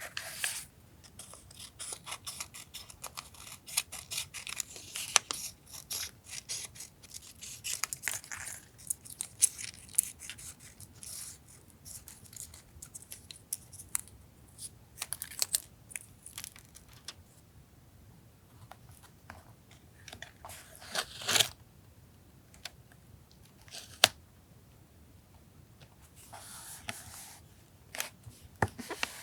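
Paper being handled for a journal collage: rustling, tearing and sharp clicks and taps. There are quieter stretches about two-thirds through, and the loudest rustle comes just after them.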